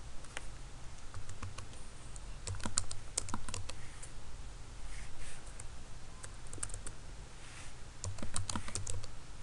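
Typing on a computer keyboard: several quick bursts of keystrokes with short pauses between them, the longest runs a third of the way in and near the end.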